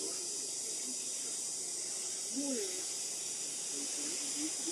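Steady high-pitched outdoor hiss, with faint distant voices talking underneath.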